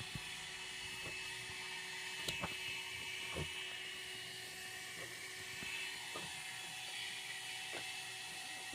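Faint steady hiss with a few scattered light taps and clicks, about eight over the span.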